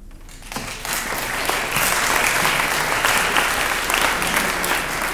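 Audience applauding. Clapping starts about half a second in and swells into steady applause.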